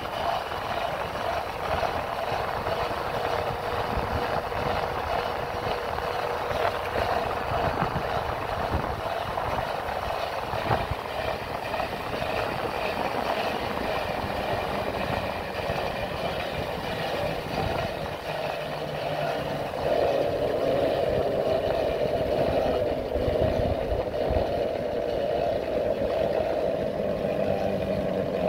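Motorcycle running along a road, its engine under a steady rush of wind over the microphone; it grows louder about twenty seconds in.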